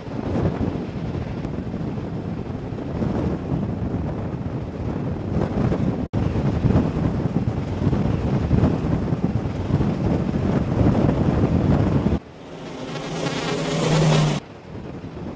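Heavy wind buffeting the microphone at sea, with a low rumble underneath and a sharp cut about six seconds in. Near the end a separate roar with a steady low hum swells for about two seconds and stops abruptly.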